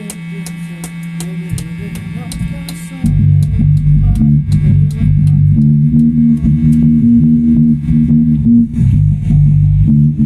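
Instrumental music on bass guitar and guitar. A steady ticking beat and a held low note run for the first few seconds, then the bass comes in loud, playing a line of changing notes about three seconds in.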